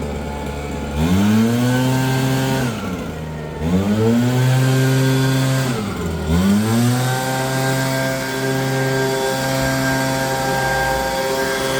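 Small two-stroke petrol engine of a leaf blower, throttled up and back down to idle twice, then held at full revs from about halfway through.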